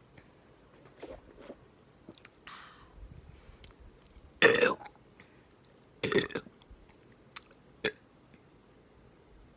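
A person's burps close to the microphone: two short, loud burps about a second and a half apart, the first the louder, with faint mouth clicks and a breath around them.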